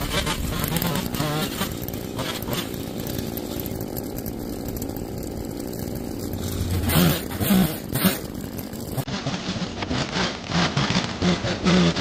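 A small engine running, its level rising and falling, with an abrupt change in the sound about nine seconds in.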